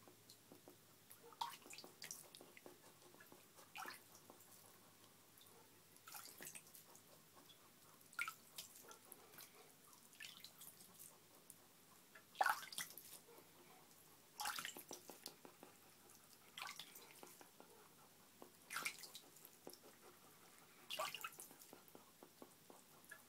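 Faint water drips and small splashes, a short one about every two seconds, from a wet hedgehog being bathed in a shallow basin of water.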